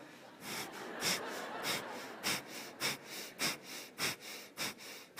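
Bellows breathing into a microphone: a woman pumps out short, forceful exhalations through the nose in a steady rhythm, about two a second, her abdomen contracting on each one.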